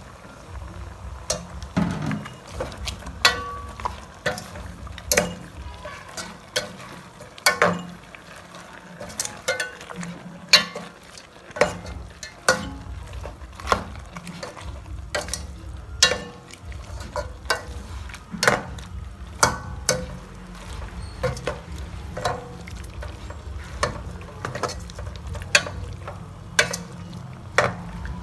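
Sweet pork being stirred in a frying pan: a utensil scrapes and knocks against the pan in irregular sharp clinks, about one or two a second, over a low steady sizzle.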